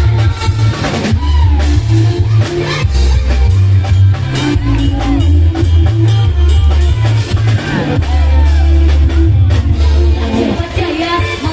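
Loud live electone keyboard music with a programmed drum beat and heavy pulsing bass under a melody line.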